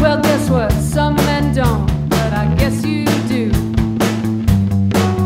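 Rock band playing live: a steady drum beat with bass and electric guitar under a woman singing.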